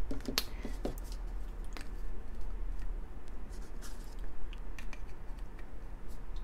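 Small hard-plastic toy parts being handled and fitted together, the snap-on costume pieces of a McNugget Buddy figure: a few quick clicks and taps in the first second, then sparse light ticks.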